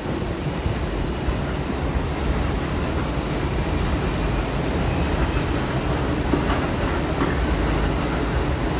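R179 subway train pulling out of the station, its motors and wheels running steadily and growing slowly louder.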